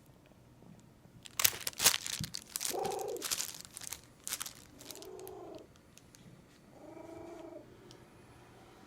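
A domestic cat chewing plastic gift wrap in a run of sharp crinkles and crackles. Then come three short funny calls from the cat, each under a second and about two seconds apart.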